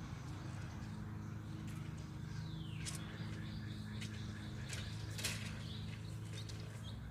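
Birds chirping over a steady low hum, with one falling call about two and a half seconds in and a few short, sharp chirps around five seconds.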